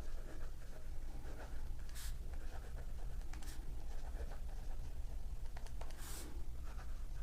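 Tarot cards being shuffled and handled: soft rustling, with a brief swish about two seconds in and another about six seconds in.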